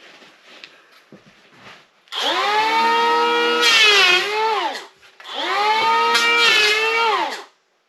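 Electric hand planer run twice on a wooden board: each time the motor whines up to speed, its pitch dips as the blades take the cut, then it winds down. The first run lasts nearly three seconds and the second a little over two, after a few light knocks.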